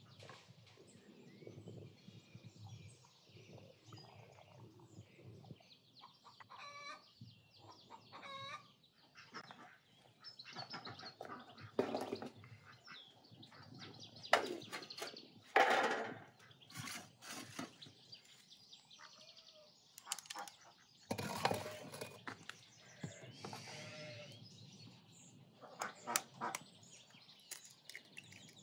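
Farmyard poultry calling, a few wavering calls about seven seconds in, with knocks and clatter of a clay oven's metal door and cookware being handled, loudest around the middle.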